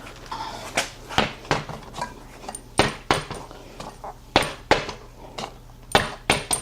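About a dozen sharp, irregular clicks and clinks of metal on metal from work on a fat-tire e-bike wheel as its tire is brought up to pressure.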